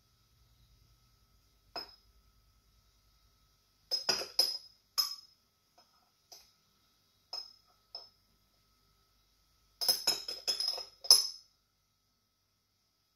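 A metal utensil clinking sharply against glass, in scattered groups: one clink about 2 s in, a quick run of clinks around 4 to 5 s, single clinks after that, then another quick run near the end.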